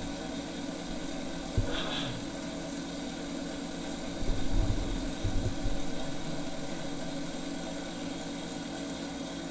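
Steady machine hum, with one thump about a second and a half in and a stretch of low rumbling knocks between about four and six seconds in.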